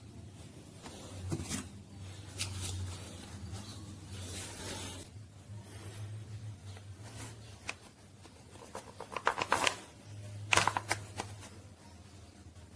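Light handling noises: rustling, scraping and a few sharp clicks, loudest about nine and again about ten and a half seconds in, over a low steady hum.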